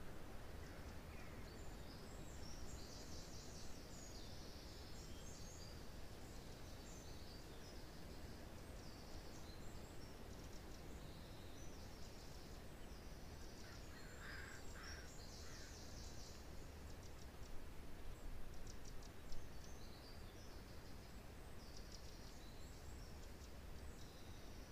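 Small forest songbirds twittering in high, rapid trills, with a brief lower call about two-thirds of the way through, over a steady low rush of wind in pine trees.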